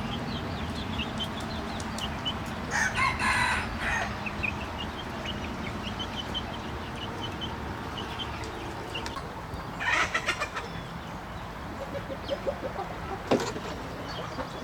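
A flock of chickens clucking and peeping, with two louder squawking calls about three seconds in and again about ten seconds in, over a steady low hum.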